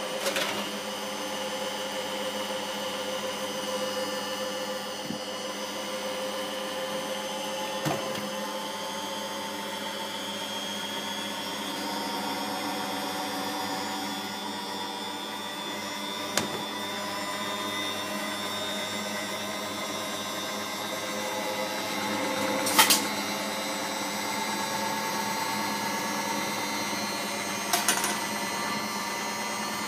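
Candy GODF800 front-loading washing machine spinning at high speed with its door open: a steady motor and drum whine whose pitch drifts slowly. A few sharp knocks sound from the drum, the loudest about 23 seconds in.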